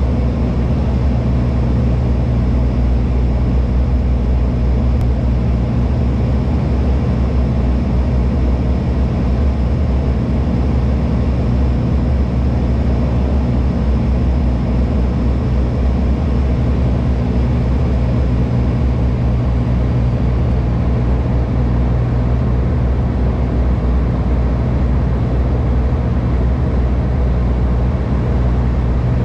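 Cabin drone of a de Havilland Canada Dash 8-100 turboprop in flight, recorded at the window beside the propeller: a steady, loud, low hum of the engine and propeller blades with rushing air noise, and a faint high whine that fades out about two-thirds of the way through.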